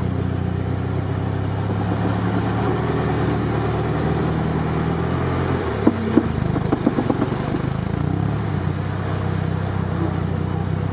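Off-road SUV engine running steadily at low revs as it drives through deep mud and water. About six seconds in, the engine note shifts and there are several short knocks and splashes.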